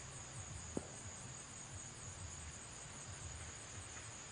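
Insects chirping in a steady, high-pitched drone, with a low rumble beneath and a single faint click under a second in.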